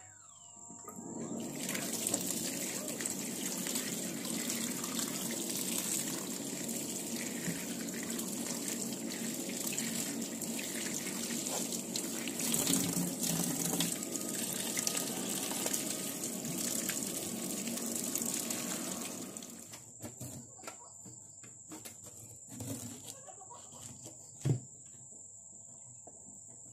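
Kitchen tap running into a stainless steel sink as pineapples are rinsed under it. The water stops a few seconds before the end, leaving a few light knocks.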